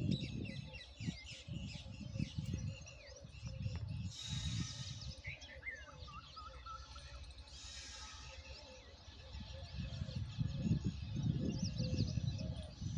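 Small birds chirping and trilling, over an irregular, gusty low rumble like wind buffeting the microphone, with two short bursts of hiss about four and eight seconds in.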